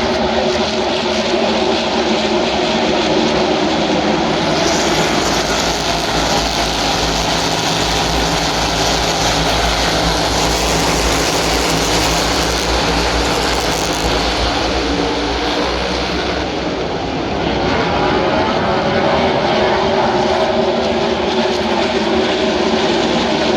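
A pack of NASCAR Cup Series stock cars running, many V8 engines droning together, swelling louder and brighter for several seconds in the middle as the cars pass close.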